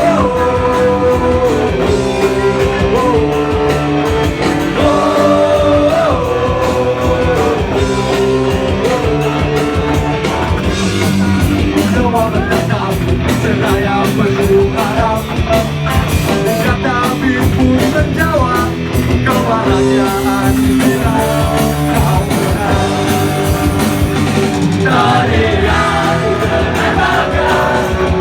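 Live rock band playing, with electric guitars, drums and a sung melody over them.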